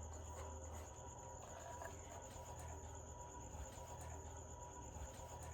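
Faint background sound: a steady high-pitched trill over a low hum, with a few soft clicks.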